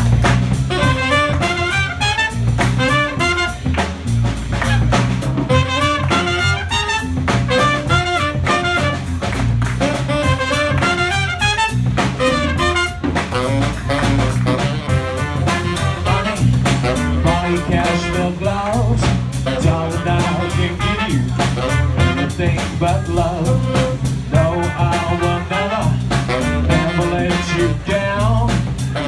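Live small jazz band playing an instrumental passage: trumpet and saxophone lines over bass and a drum kit, continuous and fairly loud.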